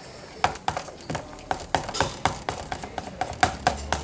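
Slime being mixed in a container: a run of quick, irregular small clicks and taps, a few each second.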